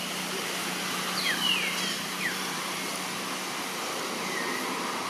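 Outdoor forest ambience: a steady hiss with a low steady hum. Several short, high chirps that fall in pitch come between about one and two and a half seconds in, and one more comes near the end.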